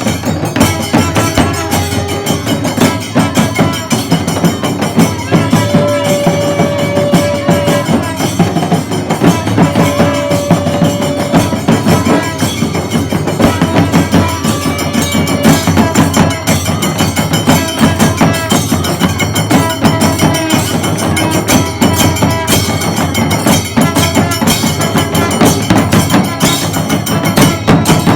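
Kailaya vathiyam ensemble playing: fast, dense drumming with clashing cymbals, and a horn holding one long note twice, in the first half.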